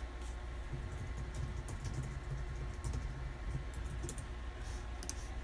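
Computer keyboard typing: light key clicks at irregular intervals over a steady low hum.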